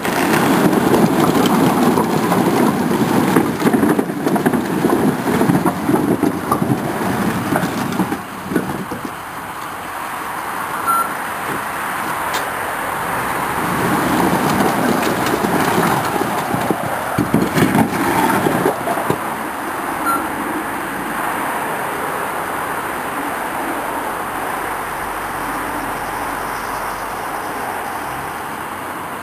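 A dump truck's engine runs its hydraulic hoist as the bed tips up, and a load of cut firewood logs slides out and tumbles onto a pile. The logs clatter in two heavy spells, one at the start and another about halfway through with a few sharp knocks. After that the truck runs on steadily.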